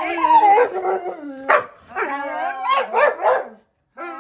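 A dog whining and yowling in long, wavering pitched cries, broken by a few short sharp barks. It is an impatient dog fussing while it waits for a treat it has been told to sit for.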